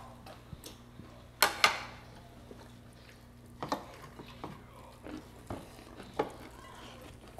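A metal fork and dishes clinking against ceramic plates and bowls in a few sharp knocks, the loudest pair about a second and a half in. A steady low hum runs underneath.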